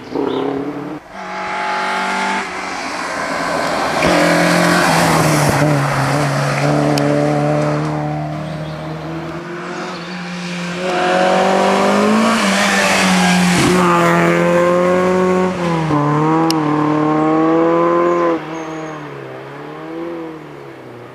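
Historic rally car engine at full throttle on a tarmac stage, revving hard with the pitch climbing and dropping at each gear change. It grows loud twice, about four and about eleven seconds in, then falls away suddenly near the end as the car passes and drives off.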